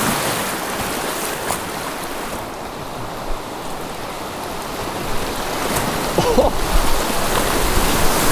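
Whitewater rushing over a river block ramp, heard from an inflatable kayak running through it, with the odd splash. The rush eases a little a couple of seconds in and grows louder and rougher again from about five seconds on.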